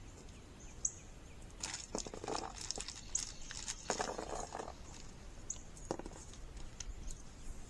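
Scattered light clicks, knocks and scuffs from handling the metal raised-bed panels and their wing-nut hardware, with a few sharper knocks among them.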